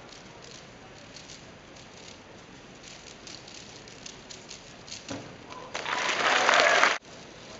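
A short burst of applause, over a faint background of scattered light clicks, that cuts off suddenly about a second and a half after it starts.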